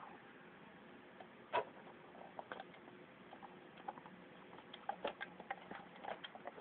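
Faint, scattered light clicks and taps: a single one about a second and a half in, then small ticks coming more and more often through the last few seconds.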